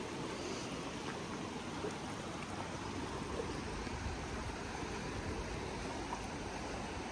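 Steady rush of flowing river water, an even hiss with a low rumble underneath.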